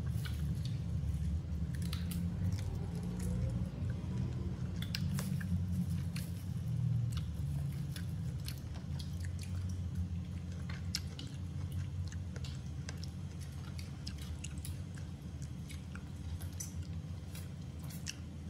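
Baby macaques chewing and biting pieces of grilled meat, with irregular short clicks and smacks. A steady low hum runs underneath.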